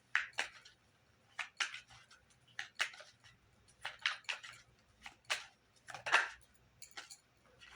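Tarot cards being handled: a series of short, crisp papery snaps and slides at uneven intervals, as the deck is shuffled and cards are drawn.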